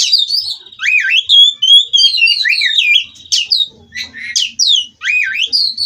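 Oriental magpie-robin singing an unbroken run of quick, varied whistled phrases with sweeping notes over a buzzy held note, the continuous 'ngerol' song prized in kept kacer. It breaks off briefly just before four seconds in and again about five seconds in.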